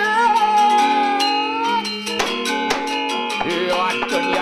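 Balinese gender wayang ensemble of bronze-keyed metallophones playing. A voice holds one wavering note for the first two seconds, then a run of sharp wooden knocks comes in, typical of the puppeteer's cempala striking the puppet box.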